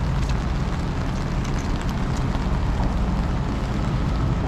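Steady low rumble of a ship's machinery under an even hiss of wind and rain.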